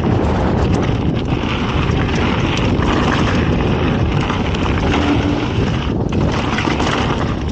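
Wind rushing over the microphone as a mountain bike rides fast down dirt singletrack, with a steady rumble of knobby tyres on the trail and scattered small clicks and rattles from the bike.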